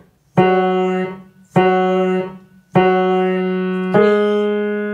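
Piano played slowly on the black keys with the left hand. The same note is struck three times about a second apart, then a note a step higher, each left to ring and fade.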